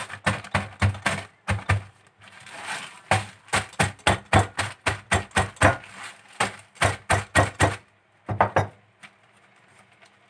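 Wooden rolling pin pounding cookies in a plastic freezer bag on a countertop, crushing them to crumbs: rapid knocks, about four a second, with a short break in the middle. They stop a little before the end.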